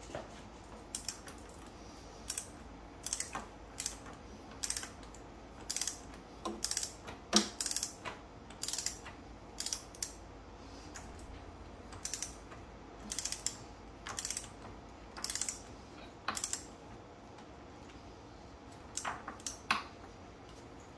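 Ratchet head of a long click-type torque wrench ratcheting in short bursts of ticks, about one burst a second, as the handle is swung back and forth to run a nut down. The bursts stop for a few seconds, and a couple more come near the end.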